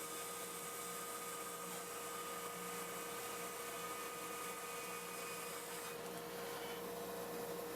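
Faint steady hum with an even hiss and no distinct events; it begins to fade out near the end.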